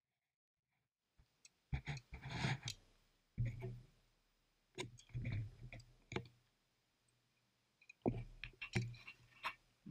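A dog eating scraps off the floor: wet mouth clicks and chewing in short clustered bursts, starting about a second in.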